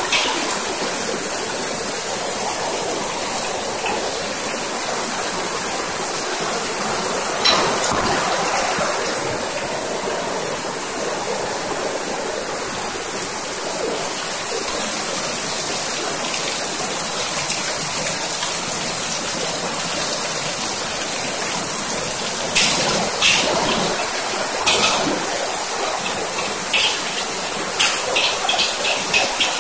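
Fried rice cooking in a wok with a steady, loud hiss, and a metal spatula striking the wok: once early on, then a run of sharp clanks in the last seven seconds or so.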